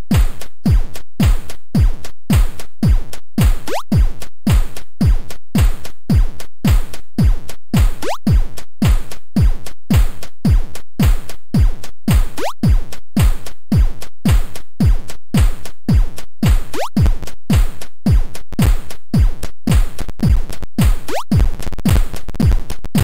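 Sampled drum-machine loop at 110 BPM played back in a web browser: steady kick drums with a quickly falling pitch, hi-hats and crashes, and a short rising sound effect that comes round about every four seconds as the pattern repeats. Near the end a steady buzzy haze sets in under the hits.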